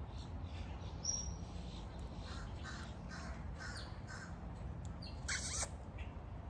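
African grey parrot calling: a brief high whistle, a run of soft repeated notes, then one short, harsh squawk near the end, which is the loudest sound.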